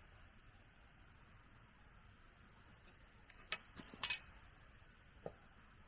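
A few light, sharp clicks or knocks over a faint steady hiss, the loudest a quick double knock about four seconds in.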